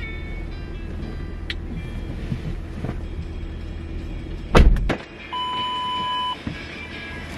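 Car engine running with a steady low hum. About four and a half seconds in, a loud thump comes and the hum stops, then a steady electronic beep lasting about a second.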